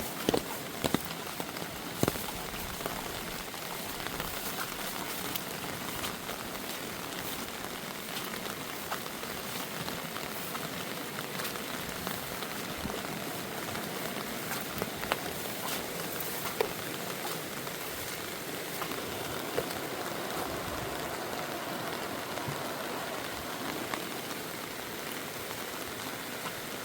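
Steady rain falling, with scattered sharp ticks of single drops striking close by.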